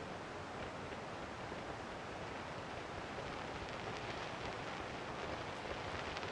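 Steady outdoor noise, an even rushing hiss, with a few faint crackles from about three seconds in.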